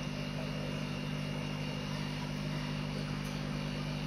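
Steady mechanical hum with a faint high whine above it, unchanging throughout.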